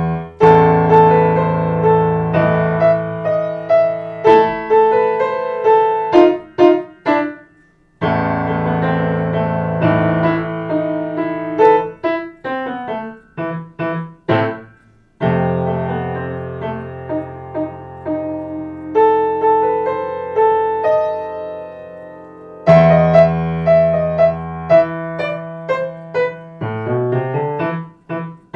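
Upright acoustic piano played solo: a piece in phrases, melody notes over held low bass notes, with a short break between phrases about every seven to eight seconds.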